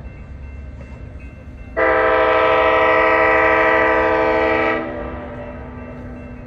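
Locomotive air horn sounding one loud, steady blast of about three seconds, starting abruptly about two seconds in. A low rumble from the train runs underneath.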